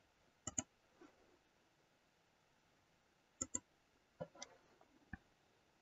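Computer mouse button clicks over near silence: short clicks in close pairs, about half a second in, at about three and a half seconds, and a few more between four and five seconds.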